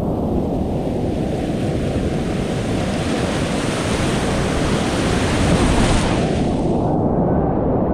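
Whitewater rapids rushing loudly around a kayak running them at high water, with water splashing over the boat. The splashy hiss on top stops abruptly about six seconds in, leaving a low, dull rushing.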